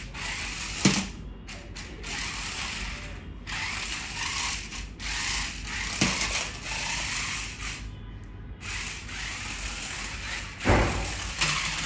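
Toy RC car's small electric motors and plastic gears running with a ratchety whirr as the car turns, stopping briefly a few times. There are a few sharp knocks, the loudest near the end.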